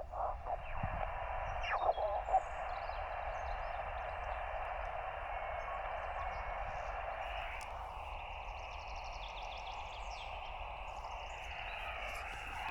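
Steady hiss of an SSB transceiver's receiver on an empty band, cut off sharply above and below by the voice filter, with a dip in the hiss that slides lower in pitch a few times. Faint bird chirps sound over it.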